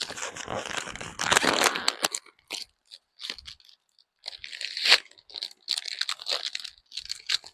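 Packaging being handled and unwrapped: plastic wrap and card crinkling and tearing, dense for about two seconds, then in short scattered rustles.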